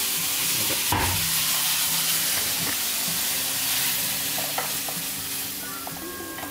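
Garlic frying in hot vegetable oil in a pan, a steady sizzle that eases off toward the end, with a short knock about a second in.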